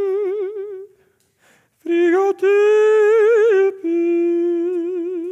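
A man's voice singing long, high held notes with a wavering vibrato and no clear words, in three phrases with short breaks between them; the middle phrase is the loudest.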